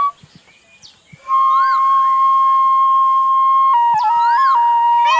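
Bansuri (bamboo flute) melody: after a brief pause of about a second, one long held note, then quick ornamented steps between neighbouring notes near the end. Two short rising-and-falling chirps sound over the held note.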